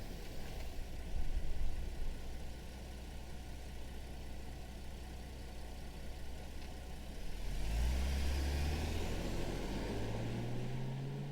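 Ford Explorer ST police SUV's engine idling with a low, steady rumble. About eight seconds in it grows louder and pulls away, its note rising toward the end.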